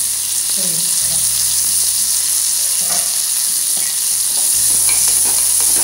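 Hot oil sizzling steadily in a kadai as fresh drumstick (moringa) leaves are dropped into the tempering of mustard seeds, cumin and shallots, growing a little louder about halfway through.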